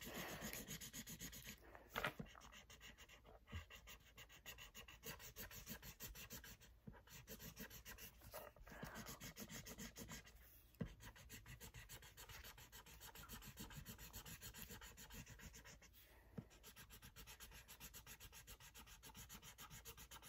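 Felt-tip marker rubbing on paper in rapid back-and-forth coloring strokes, faint and steady, with a few soft knocks.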